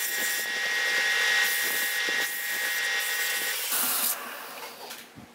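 Wood lathe running with a steady high whine, under the hiss of sandpaper held against the spinning wooden disc. About four seconds in the whine stops and the sound falls away as the lathe is switched off.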